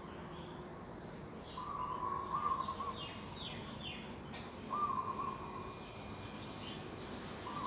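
Birds calling in a garden. A clear mid-pitched call, held and then wavering at its end, repeats about every three seconds, and a quicker run of three higher notes falling in pitch comes between the first two calls.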